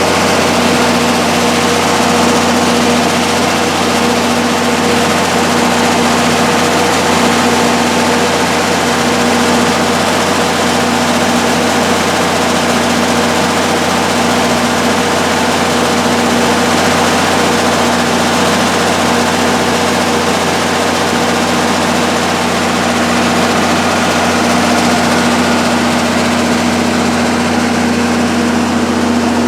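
Onan 80 kW diesel generator set, driven by a six-cylinder turbo diesel Cummins engine, running steadily at constant speed with an even hum.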